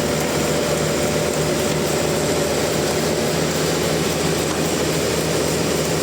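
Sawmill machinery running steadily: a constant mechanical drone with no change in pitch or level.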